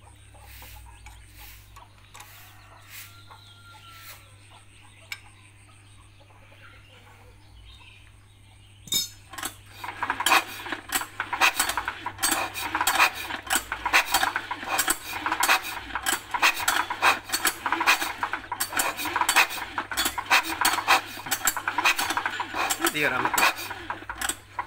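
Small single-cylinder diesel engine of a cultivator being turned over with its injector out of the cylinder head, to test the injection pump. It gives a rapid, irregular metallic clatter that starts about nine seconds in, after a quiet stretch with a few small handling sounds.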